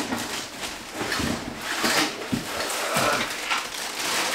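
Irregular rustling and crinkling of a plastic bag and cardboard as things are pulled out of a cardboard box.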